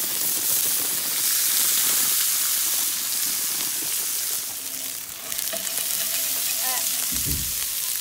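Frozen fried rice poured into a hot frying pan, sizzling as it hits the metal, strongest in the first few seconds, then frying on steadily. A short dull thump comes near the end.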